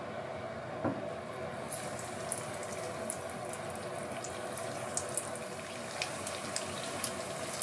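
Chicken wings sizzling in hot oil in a frying pan as they are dropped in. Crackling and popping start about two seconds in and keep coming irregularly over a steady background hum, after a single knock about a second in.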